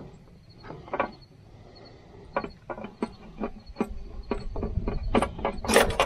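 Irregular metallic clicks and knocks as the fuel injection pump is worked and slid off its mounting on a diesel engine by hand, with a louder knock near the end.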